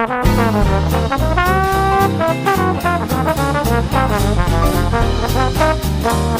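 Background music: an upbeat brass-led tune with trombone and trumpet over a steady bass beat.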